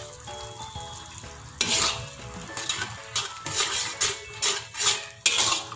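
Metal spatula stirring and scraping through tomato sauce in a metal wok. The strokes come about twice a second, starting about one and a half seconds in, over soft background music.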